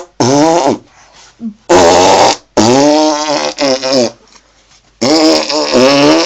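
A string of about five loud, buzzy fart-like noises, each lasting roughly half a second to a second, with a wavering pitch and short pauses between them.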